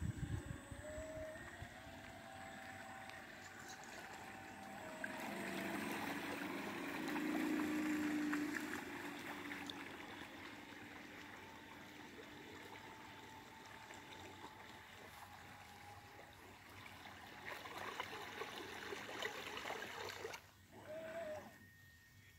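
Radio-controlled model boat running on open water: a thin motor whine that shifts in pitch, over water splashing and gurgling, louder for a few seconds about a quarter of the way through.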